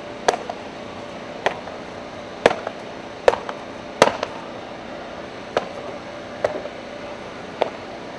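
Sharp slaps of kicks striking a handheld kick target. There are about eight strikes, roughly a second apart and unevenly spaced; the loudest come about three and four seconds in.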